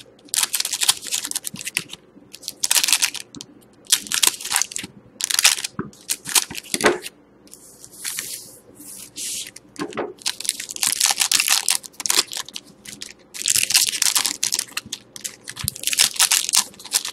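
Foil wrappers of Panini Certified hockey card packs being cut open with scissors and handled, crinkling and tearing in a string of short, irregular bursts.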